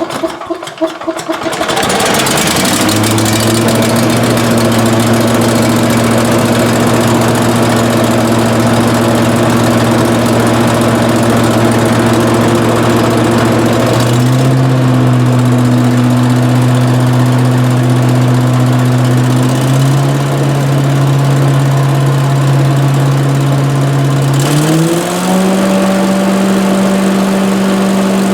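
18 hp Briggs & Stratton Vanguard V-twin engine, fitted with a new carburetor, catches and starts, then runs steadily. Its speed steps up about halfway through and again about two-thirds through, then rises more sharply near the end.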